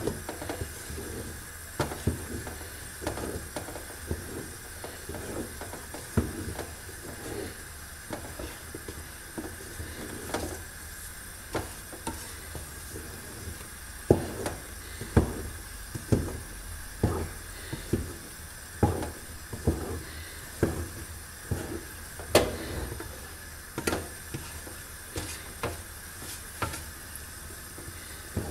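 Long wooden spoon stirring a thick sesame-and-hazelnut zrir paste in a large aluminium pot, with irregular dull knocks and squelches about once a second over a steady faint hiss. The paste is being worked continuously as it cooks and thickens.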